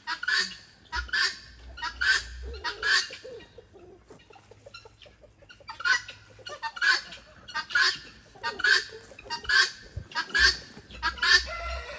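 Female guinea fowl calling, the repeated two-note 'buck-wheat' call of the hen: short cries about every two-thirds of a second, in two runs with a pause of about two seconds between.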